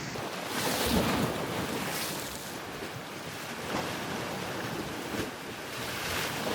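Ocean surf washing onto a shore: a steady rush of breaking waves that swells about a second in and builds again near the end.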